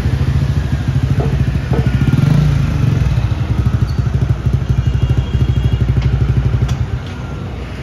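A motorbike engine running close by with a steady rapid putter, which drops away near the end, over street traffic.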